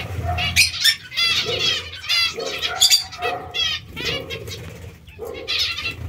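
Zebra finches calling, short calls with several overtones repeating about twice a second, from more than one bird.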